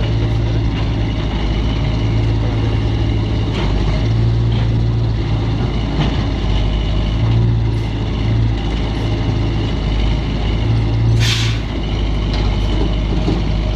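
Heavy diesel machinery engine running steadily with a deep hum, a few light knocks, and one short hiss of released air about eleven seconds in.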